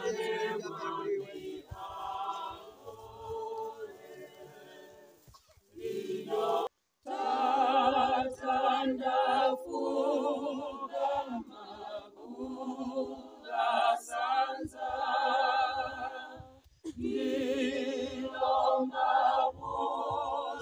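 A group of voices singing a hymn unaccompanied, in parts, with wavering held notes. The singing breaks off briefly about seven seconds in and comes back louder.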